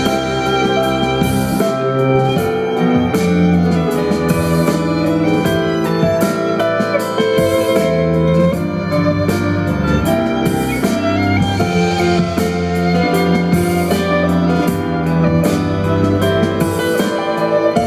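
Violin and contrabass duo playing a pop-style instrumental tune, with long held notes over a low bass line.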